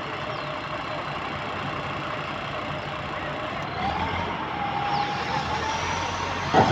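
Heavy diesel machinery running steadily. About four seconds in it picks up, with a rising whine that then holds. A sharp metallic knock comes near the end.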